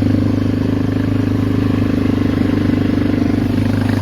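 Polaris Magnum 425 ATV's single-cylinder four-stroke engine running at a steady throttle under way, its pitch holding constant.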